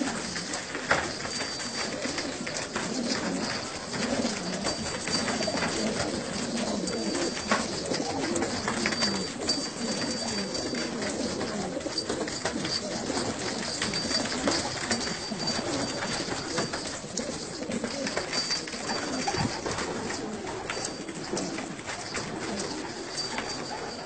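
A flock of domestic pigeons cooing, many low coos overlapping without a break.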